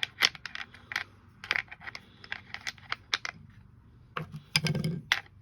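Irregular small metallic clicks and taps of a Bosch angle grinder's spindle flange and lock nut being handled and fitted onto the spindle.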